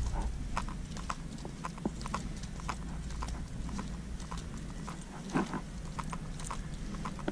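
Footsteps clicking roughly twice a second over a low steady hum.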